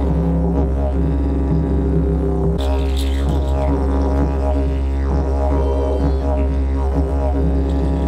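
Didgeridoo played as a continuous low drone, its overtones shifting as the player changes mouth shape. Higher, bending tones join over the drone about two and a half seconds in.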